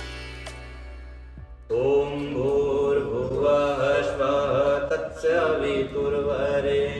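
Music fades out, then about two seconds in a devotional mantra chant with musical backing begins and carries on steadily.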